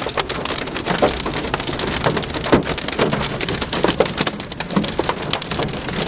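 Large hailstones pelting a car's roof and windshield, heard from inside the car as a dense, unbroken stream of hard knocks.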